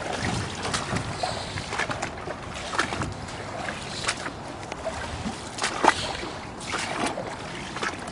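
Feet wading through ankle- to knee-deep creek water: irregular sloshes and splashes, with one sharper splash a little before six seconds in.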